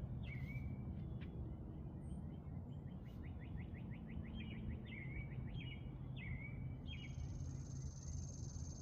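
Songbirds chirping outdoors: repeated short calls, with a quick run of notes in the middle. A high, steady buzz joins near the end, over a constant low rumble.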